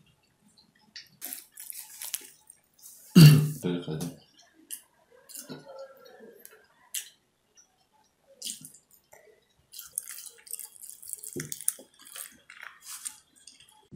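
A person eating a breadcrumb-coated fried chicken drumstick: irregular crunching bites, chewing and wet mouth clicks, with one louder thump about three seconds in.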